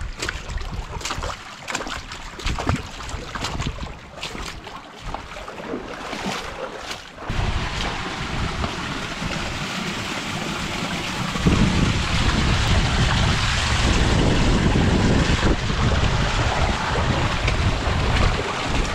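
A small creek running through a narrow sandstone slot canyon, its flow rising to a steady rush from about a third of the way in, as the cascading water comes into view. Earlier there are scattered clicks and scuffs of footsteps on rock. About halfway through, a low rumble of wind on the microphone joins the water.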